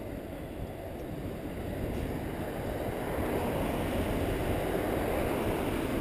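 Steady rush of wind on a GoPro's microphone and rolling noise from a bicycle being ridden on a paved path. The noise swells a little about halfway through.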